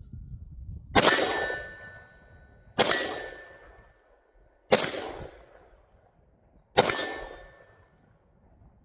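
Four single shots from a Great Lakes Firearms AR-15 rifle, roughly two seconds apart, each followed by a long fading echo and the ring of a steel target being hit.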